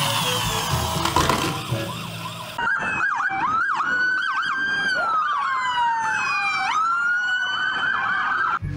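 Toy police cars' electronic sirens, two overlapping siren patterns wailing up and down and yelping. Background music plays under them for the first couple of seconds.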